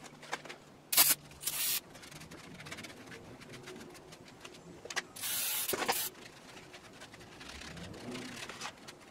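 Short hissing spray bursts, two quick ones about a second in and a longer one of nearly a second around five seconds in, while the cast-iron rack is cleaned of dust and grime. Small handling clicks and rubbing come between the bursts.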